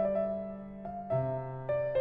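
Slow background piano music, single sustained notes struck about every half second.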